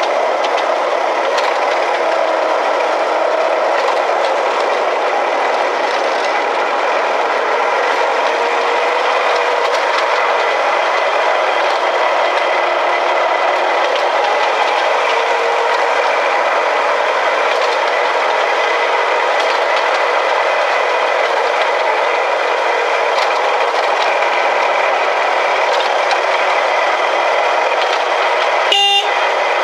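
Miniature ride-on garden railway train running along its narrow-gauge track: steady rolling rattle of small wheels on the rails with a steady whine from the drive. A short horn toot near the end.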